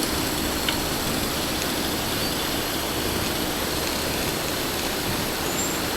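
Excavator engine running steadily, an even rumble and hiss, with one faint tap about a second in.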